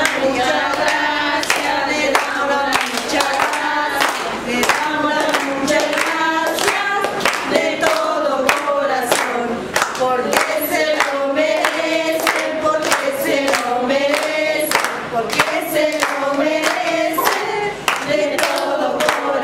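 A group of children and women singing a song together, clapping their hands in time.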